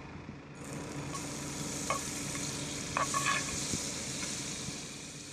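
Butter sizzling in a hot frying pan set in a campfire. The sizzle starts suddenly about half a second in as the butter melts, with a few short clicks of a knife against the pan as the butter is pushed around.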